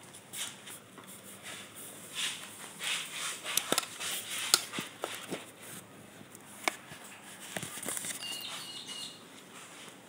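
Handling noise: rustling and scattered sharp clicks and knocks as a phone is moved about and gear is put on, with a cluster of louder clicks about three and a half to five seconds in and a brief faint high squeak near the end.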